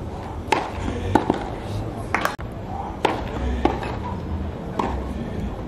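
Tennis rally on a clay court: rackets striking the ball and the ball bouncing, about six sharp knocks roughly a second apart, over a background of crowd voices.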